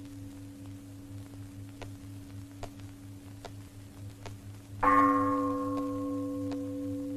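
A metal bell is struck once about five seconds in and rings on, its higher overtones dying away while the lower tone lingers. Before it there is a steady pure humming tone like a sustained bowl or bell drone.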